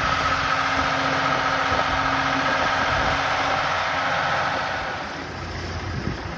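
Boat travel lift's engine running steadily with a constant whine. It gets quieter about five seconds in.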